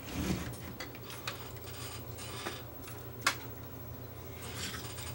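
Handling noises at a repair bench as a metal CD player chassis and small parts are moved: a soft bump near the start, then scattered light clicks and taps, one sharper click about three seconds in, over a low steady hum.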